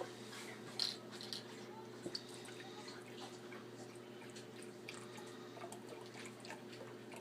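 Milk being poured into a measuring cup: faint trickling and dripping, with a few light clicks.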